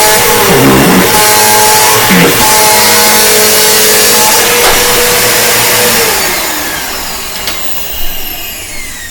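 2007 Bissell Power Force Bagless upright vacuum cleaner running with a loud, steady whine, its pitch dipping briefly twice in the first few seconds. About six seconds in it is switched off and the motor winds down with a falling whine.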